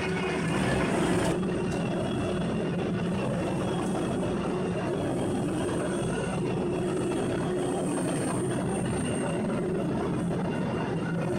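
ZEDA-PN5000 high-capacity industrial document shredder running steadily while shredding paper: a constant mechanical drone with the noise of paper being torn through its cutters. The sound shifts slightly about a second in.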